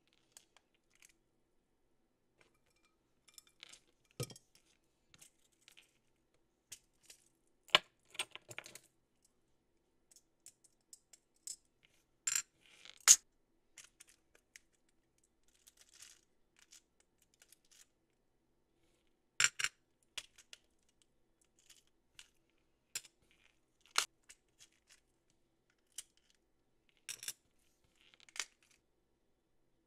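Scattered clicks and light clinks of small clear plastic charm boxes being opened, snapped shut and handled, with small metal nail charms rattling inside, a handful of sharper snaps standing out among quieter taps.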